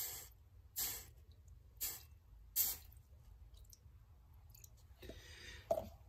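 Water poured in short splashes from a plastic bottle onto a hot, freshly brazed copper tube to cool it: four brief hissing splashes about a second apart in the first three seconds, then quieter.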